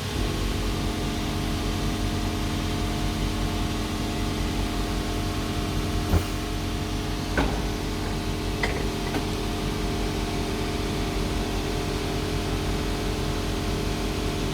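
Steady hum of an electric motor on workshop machinery, with a few short clicks and knocks about halfway through.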